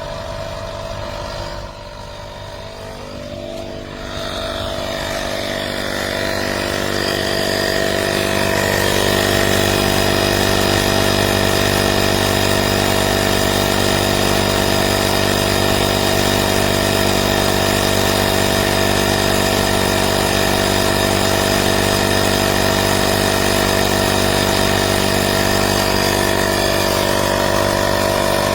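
AstroAI 12V portable tyre inflator's compressor running steadily as it pumps up a car tyre toward its preset pressure. It grows louder over the first several seconds, then holds steady.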